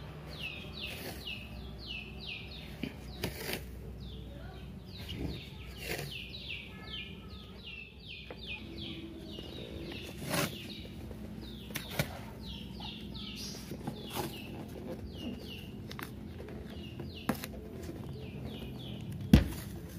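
A bird chirping over and over in a quick series of high, down-slurred notes, with scattered soft clicks and taps and one sharp knock near the end.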